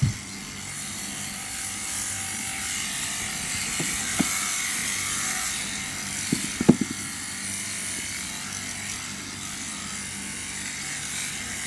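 Electric sheep shears running steadily with a buzzing hum and hiss as they cut through fleece. A few sharp knocks about four seconds in and twice around six and a half seconds in.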